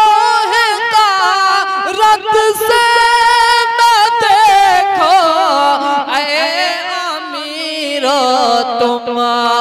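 A man singing a naat solo through a microphone, drawing out long wordless notes with rapid trilling ornaments. The melody steps gradually lower through the second half.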